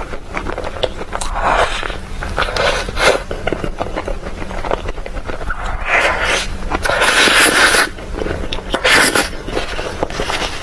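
Close-miked chewing of sweets: irregular crunching and crackling bites with wet mouth clicks, heaviest in two stretches in the second half.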